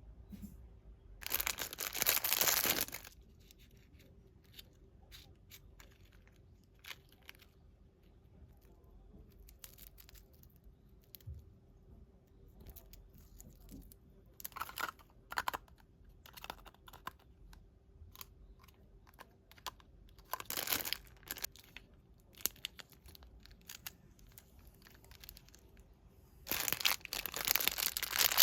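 Parcel packaging being torn open and crinkled by hand: a loud tearing rip about a second in and another starting near the end, with scattered light crinkles and rustles between.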